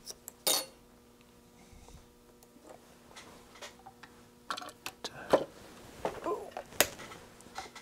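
Scattered small clicks and taps from handling a DIP chip and small hand tools at a workbench, while a bent leg of an LM386 chip is being dealt with. A faint steady hum lies underneath.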